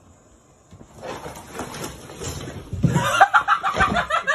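A person laughing hard in quick repeated bursts, starting about three seconds in, after a second or two of noisy rustling.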